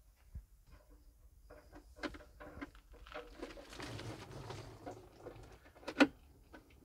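Scattered light clicks and scrapes of a spanner working the fuel-tank drain plug of a Caterpillar 206B excavator, with a soft rustling spell in the middle and one sharp knock near the end.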